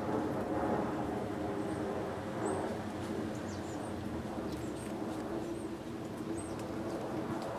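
Heavy rain falling steadily over a low rumble of thunder. A small bird gives scattered high, short chirps from about a second and a half in until near the end.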